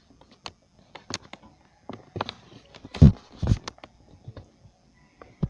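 Handling noise: scattered clicks and taps, with two heavier bumps about three seconds in.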